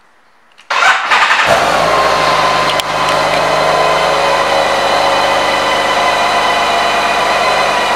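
2016 BMW K 1600 GTL's inline six-cylinder engine starting under a second in: it catches with a brief flare of revs, then settles into a steady idle. A single sharp click about three seconds in.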